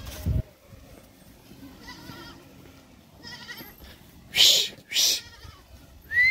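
Goats bleating now and then, with two loud, short hissing noises about four and a half and five seconds in.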